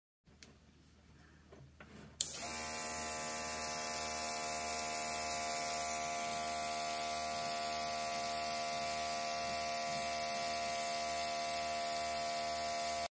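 Portable airbrush compressor (RiBO TM-80S) switching on about two seconds in and running steadily, a buzzing motor hum with a hiss of air from the airbrush as it sprays paint.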